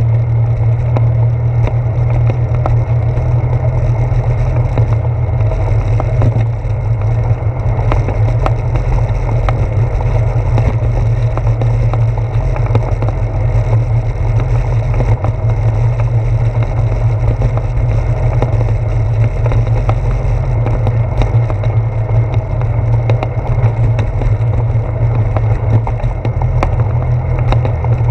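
Bicycle tyres rolling over the deck boards of a wooden boardwalk: a steady low rumble with a constant patter of clicks as the wheels cross the board joints, carried up through a handlebar-mounted GoPro.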